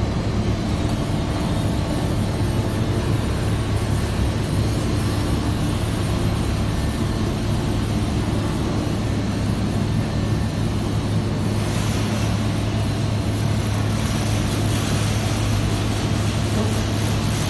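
Industrial tunnel washer line running under test, giving a loud, steady machine hum with a strong low drone. A brighter hiss joins about twelve seconds in.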